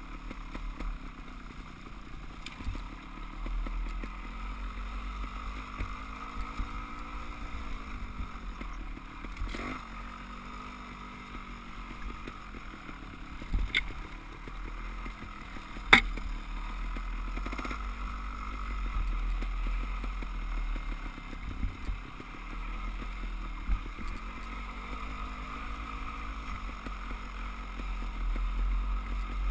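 Dirt bike engine running, its revs rising and falling as the throttle is worked, heard from a helmet camera with wind rushing over the microphone. Two sharp knocks come about halfway through, the second the loudest.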